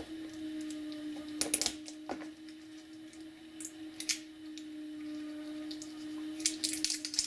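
Small clicks and crinkles from handling a compact multimeter and its AAA batteries, coming in clusters about a second and a half in, around four seconds and near the end, over a steady low hum.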